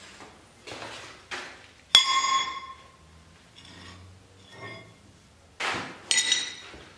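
An H13 tool-steel bar set down on a steel anvil with a ringing clang about two seconds in. Near the end a second metal clank rings out as a steel tool is laid on the bar, with softer handling noise between.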